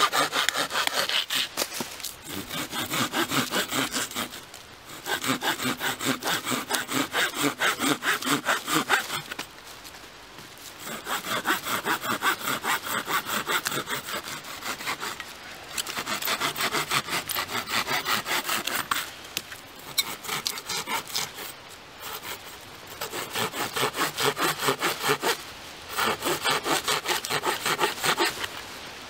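Saw blade of a Schrade SCAXE9 axe-and-saw combo cutting through a small log with quick back-and-forth strokes. The strokes come in runs of a few seconds, with short pauses between them.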